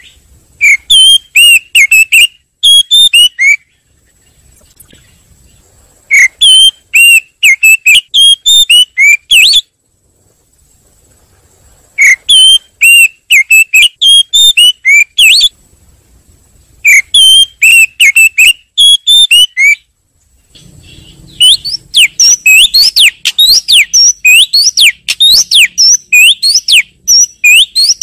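Oriental magpie-robin (kacer) lure calls: loud bursts of rapid whistled notes, repeated every few seconds, ending in a longer run of quick falling notes.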